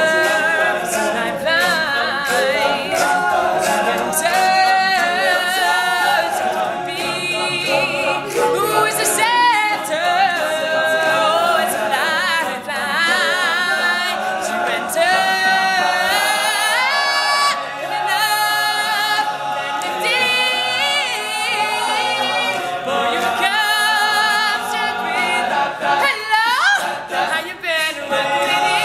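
All-male a cappella group singing in several-part harmony, with a lead voice over the backing voices.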